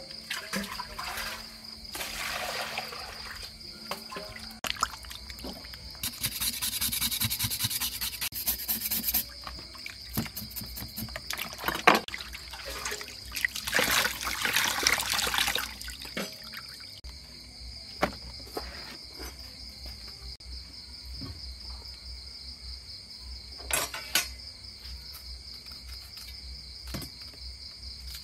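Water splashing and pouring in a plastic basin as raw pork is washed by hand, in several bursts of a second or more, with a sharp knock about twelve seconds in. Crickets chirp steadily underneath.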